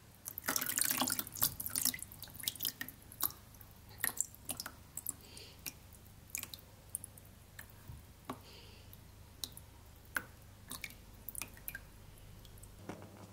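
Water sloshing and splashing as a wooden screen frame is worked in a tub of egg-carton paper pulp, about half a second to two seconds in, then water dripping back into the tub in scattered drops as the frame is shaken and lifted.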